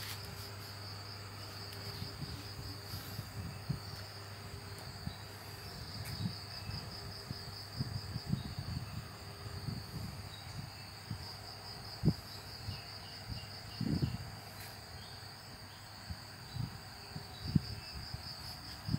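Steady high-pitched insect chirring, with a few scattered knocks and bumps, the sharpest about twelve seconds in.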